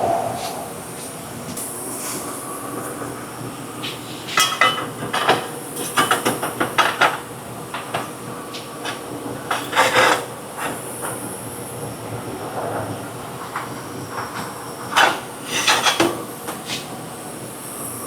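Metal parts and tools clanking and clattering in clusters of sharp knocks, over a steady hiss.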